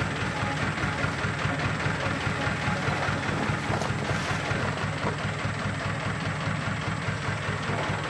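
A truck engine idling steadily, a low, even chugging.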